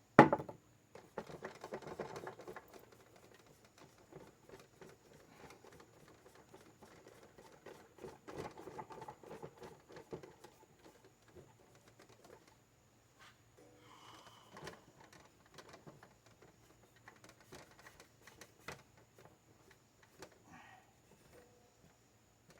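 Handling noise from cleaning an old oscillating fan's metal wire grate: a sharp knock at the start, then scattered light clicks, taps and stretches of rubbing as it is wiped down.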